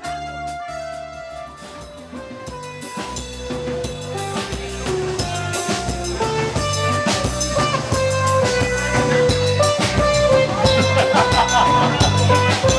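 Live rock band playing an instrumental passage in a 1980s pop medley: a steady drum-kit beat with kick and snare under held melody notes, building in loudness.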